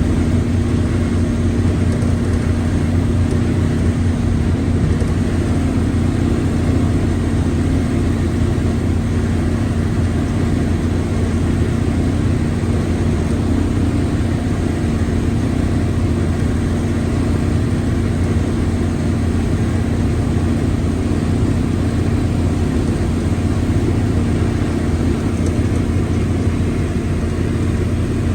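Mercedes-Benz OF-1721 L bus running at a steady pace, with a constant drone that points to a noisy gearbox. The pitch and loudness stay level throughout.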